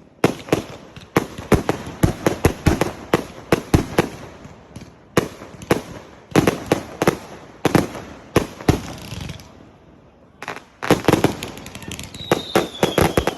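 Fireworks bursting in rapid, dense volleys of sharp bangs and crackles. The bangs die down briefly about ten seconds in, then a fresh rapid volley starts, with a faint falling whistle near the end.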